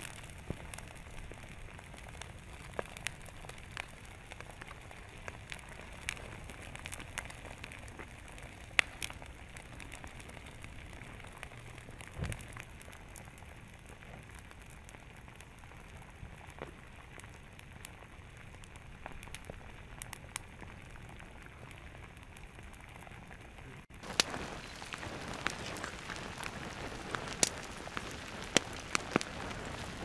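Molten lava flowing over and burning a grassy slope: scattered sharp crackles and pops over a steady hiss. The crackling grows louder and busier for the last several seconds.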